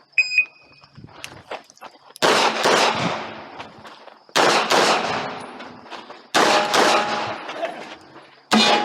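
A shot timer's short start beep, then handgun fire in four quick strings, each several rapid shots with echo trailing after them, with short pauses between strings.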